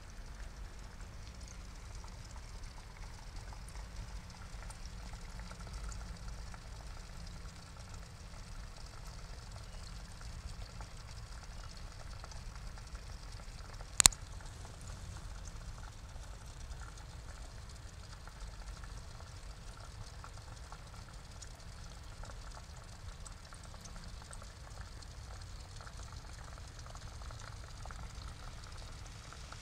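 Steady trickle and bubbling of water pouring into a small pond. About halfway through there is one sharp click.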